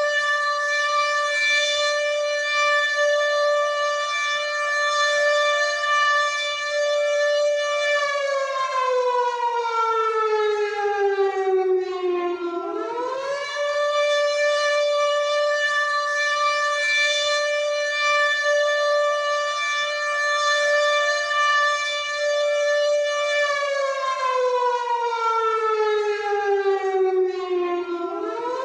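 WW2-style air-raid siren wailing. It holds one steady high tone for about eight seconds, slides down in pitch over about four seconds, then swoops back up within a second, and this cycle comes twice.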